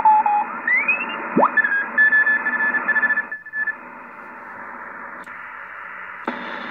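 Shortwave receiver, a Yaesu FRG-7000, tuning across the 40-metre band near 7.03 MHz. Morse (CW) signals come through as whistles keyed on and off, and their pitch glides upward as the dial turns. After about three and a half seconds only band hiss is left, and near the end the hiss jumps louder and brighter as the mode switch is turned.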